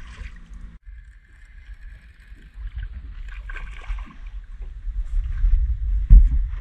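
Water splashing and wind rumble as a hooked black bream thrashes at the surface beside a small boat and is swung aboard. The rumble grows toward the end, and a sharp thump comes about six seconds in.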